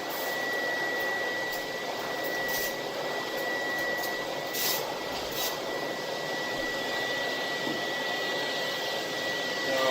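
Air-Way Sanitizor Mark V vacuum cleaner running with a steady rush of suction and a constant high whine. A couple of brief crackles come about halfway through as the nozzle works the carpet.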